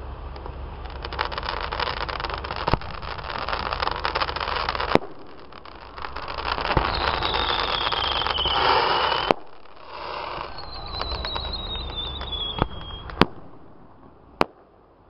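Aerial fireworks display: dense crackling from glittering bursts, broken by sharp bangs of exploding shells, with two long whistles falling in pitch in the middle. The crackling dies away near the end, leaving a few single bangs.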